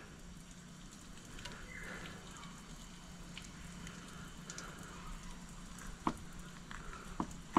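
Faint soft scraping of a Sord 7-inch flexible fillet knife working through a raw flounder along its backbone, with a few small sharp clicks near the end. A low steady hum runs underneath.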